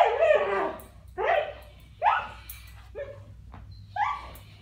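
Belgian Malinois barking five times, about once a second, each bark sharp at the start and falling in pitch.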